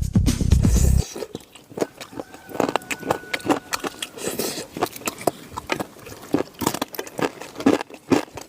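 Background music cuts off about a second in, followed by repeated crunchy bites and chewing of food, a few short crunches a second.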